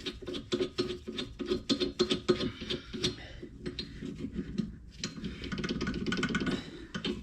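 Irregular rapid metallic clicks and clinks of hand tools and suspension parts being handled, over a low steady hum.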